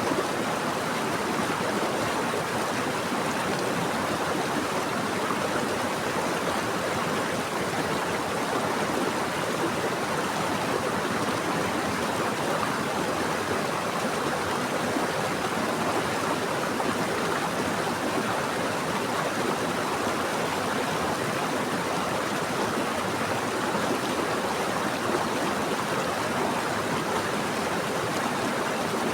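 Water flowing in a stream, a steady, even rushing that does not change.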